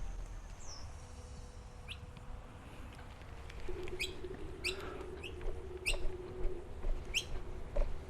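Birds chirping: a series of short, sharp chirps, each falling quickly in pitch, coming about once a second from about four seconds in.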